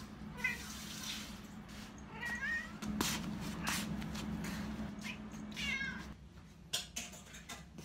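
Orange tabby cat meowing, three short calls a couple of seconds apart, over a steady low hum, with a few sharp clicks in between.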